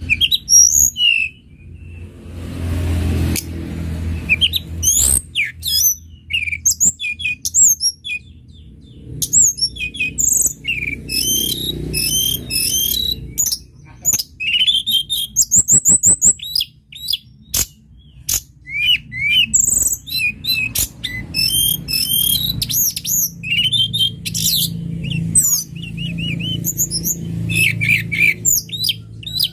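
Tledekan gunung singing: a busy run of short high chirps, slurred whistled notes and quick trills, over a steady low background rumble, with a brief rush of noise about three seconds in.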